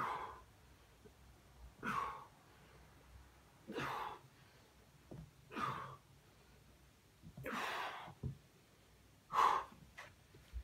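A man's forceful breaths out, one with each sit-up, roughly every two seconds, six in all; the fifth is longer than the rest.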